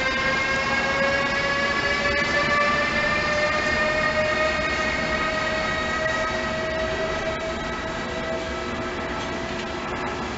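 Siemens Vectron electric locomotive accelerating a passenger train away, its traction equipment giving a whine of several tones that rise slowly in pitch, over the rumble of the train on the rails. The sound fades steadily as the train pulls away.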